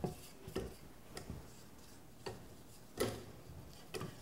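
A spatula scraping down the sides of a stand mixer's stainless steel bowl, with about six light, irregular knocks and taps against the metal.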